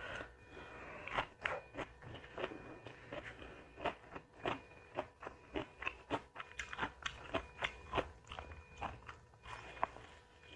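A person chewing and crunching food close to the microphone, with sharp, irregular crunches a few times a second.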